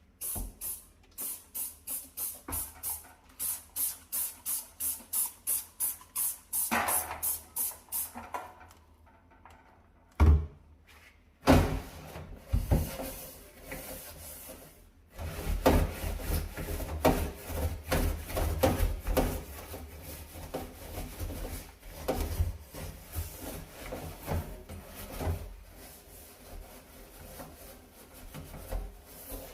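Brushing and scrubbing of a dirty oven and stovetop. It opens with quick, even, hissing strokes at about three a second, then two sharp knocks a little past a third of the way in. The rest is a long run of irregular scrubbing and rubbing with a low rumble.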